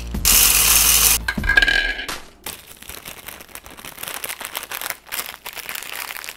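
Dry Flamin' Hot Cheetos poured into a plastic food processor bowl, a loud rattling rush lasting about a second. After it comes a quieter stretch of crackling that fits a snack bag being handled.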